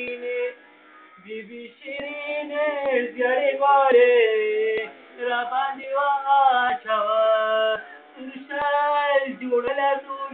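A man singing solo, holding long, ornamented notes that waver and slide in pitch, with a brief pause about a second in.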